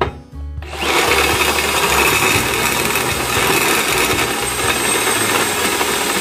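Electric hand drill boring a hole through oiled steel plate. It comes up to speed about a second in and then runs steadily under load as the bit cuts.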